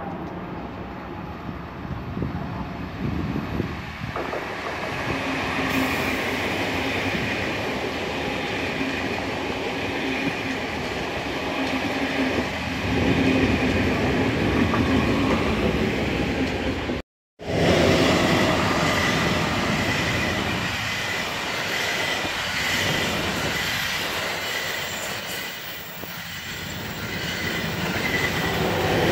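Class 411 ICE T high-speed electric multiple unit running through the station: a steady rumble of wheels on rail that swells as it passes. The sound drops out completely for a moment about 17 seconds in, then another ICE train rumbles past.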